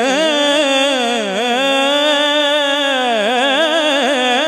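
A male naat reciter sings a hamd into a microphone, drawing out one long vowel with no break. The held note wavers and slides up and down in ornaments.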